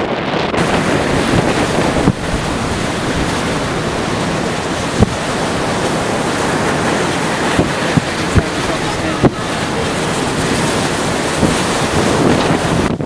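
Hurricane wind buffeting the microphone over pounding surf, a dense, loud roar with several sharp thumps from gusts hitting the mic. The roar drops away abruptly near the end.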